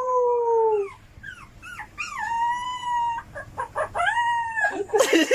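Dog howling: long, drawn-out pitched howls that sag slightly in pitch, with short rising yelps between them. A brief loud noisy burst comes near the end.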